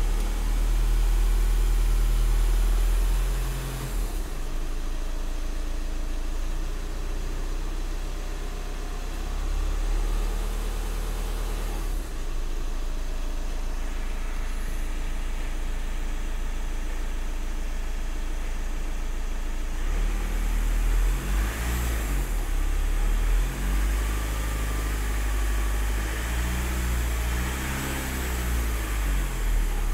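2013 Volkswagen Passat engine running in Park, heard from inside the cabin: a steady idle for the first two-thirds, then revved up and down several times in the last ten seconds.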